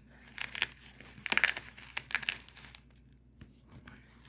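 Packaging crinkling and rustling in irregular bursts as it is handled during unboxing, loudest about a second and a half in.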